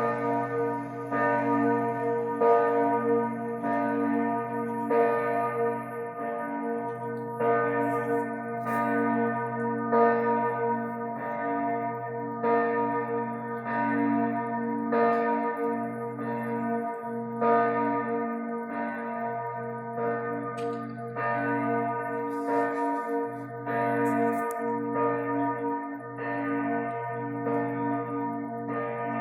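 Church bells ringing: a steady, even rhythm of strikes about once every second, over the sustained hum of lower bells that keeps sounding throughout.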